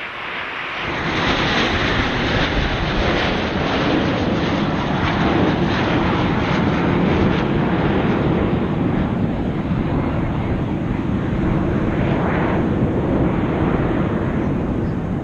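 A formation of military jets passing overhead: a loud jet roar that swells over the first second and then holds steady.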